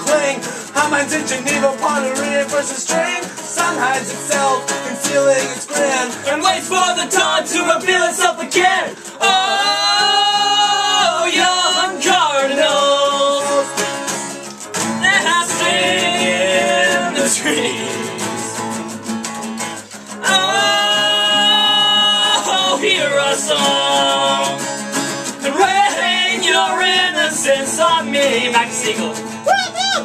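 Several acoustic guitars played together, with a voice singing over them in long phrases.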